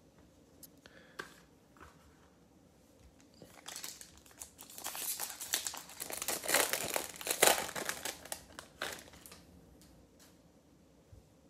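Foil wrapper of a Topps Chrome baseball card pack crinkling and tearing as it is pulled open by hand. The crackling starts a few seconds in, is loudest in the middle and dies away a couple of seconds before the end.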